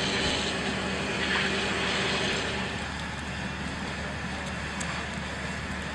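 A vehicle engine running steadily under a rushing noise; the engine hum stops about two and a half seconds in.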